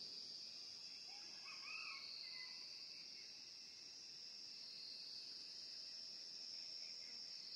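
Faint outdoor ambience of a steady, high-pitched insect chorus, with a brief faint chirp about two seconds in.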